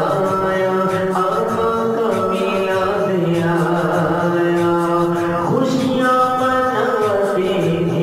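Islamic devotional singing (a naat), mostly unaccompanied: a voice holds long notes and slides between them over layered backing voices.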